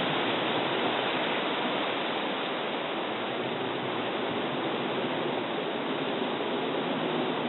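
Steady rushing noise of a typhoon-strength storm.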